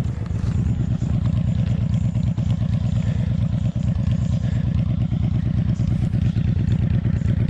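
Cruiser motorcycle engine running at low revs close to the microphone, a loud, even pulsing beat.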